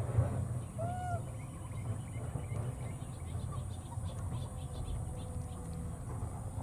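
A baby monkey gives one short coo about a second in, its pitch rising and falling, over a steady low rumble.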